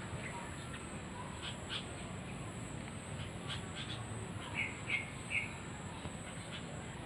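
Wild birds in a tree chirping in short, scattered calls, with three louder chirps in quick succession about four and a half to five and a half seconds in.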